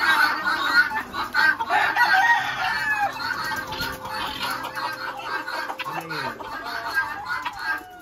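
Many caged gamecock roosters clucking and crowing at once, a dense chorus of overlapping calls.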